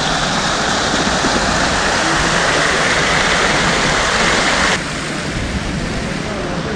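Water from a large public fountain splashing and pouring in a steady rush. About five seconds in it drops abruptly to a quieter hiss.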